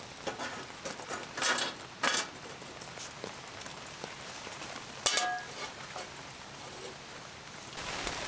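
A few sharp clinks and clatters of camp cookware or utensils being handled, one about five seconds in ringing briefly, over a steady soft hiss.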